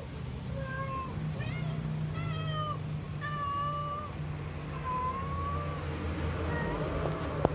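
Domestic cat giving a run of short, high-pitched meows, about six in a row with brief gaps between them.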